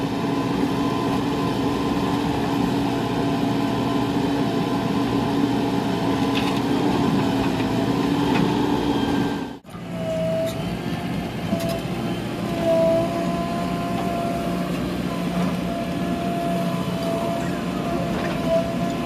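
Diesel engine of a JCB 3DX backhoe loader running steadily while it loads a tipper truck, its pitch lifting briefly near the middle of the second half. The sound cuts out for a moment about halfway through and comes back with a different engine note.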